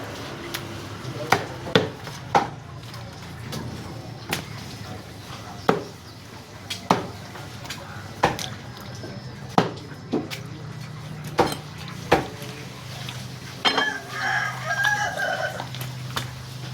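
A cleaver chopping a chicken into pieces: about a dozen sharp chops at uneven intervals of one to two seconds. Near the end a live chicken calls for about a second and a half.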